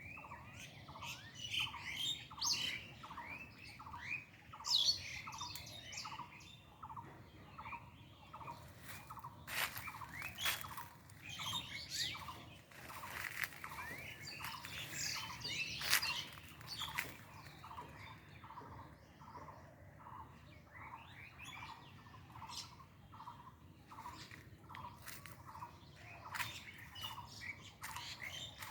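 Several birds chirping and calling. One short, low note repeats about twice a second throughout, and many higher, quicker chirps come over it, busiest in the first half, along with a few sharp clicks.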